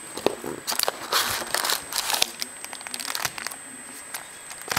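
Rustling, crinkling and light tapping as a cardboard trading-card box, its plastic shrink-wrap and the foil packs inside are handled and the packs are pulled out and stacked. The sounds come in scattered bursts, busiest about a second in and near two seconds.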